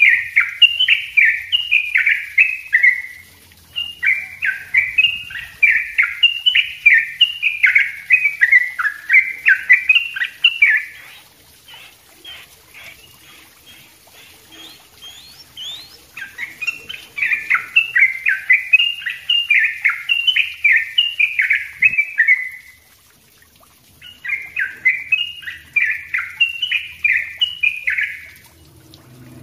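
Yellow-vented bulbul (trucukan) singing loud runs of quick, falling, bubbly notes, about two a second, in long dense phrases. A pause of several seconds near the middle holds only faint soft ticks.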